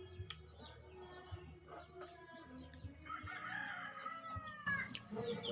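A rooster crowing once, a long call starting about three seconds in, over small birds chirping.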